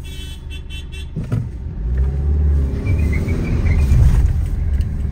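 Car engine heard from inside the cabin while driving, its low rumble growing heavier and louder about two seconds in as the car pulls up a slope.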